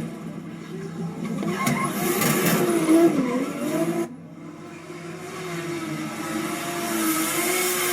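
Car engine revving hard through a drift with tyres squealing. About four seconds in the sound drops off suddenly, then the engine note builds again steadily.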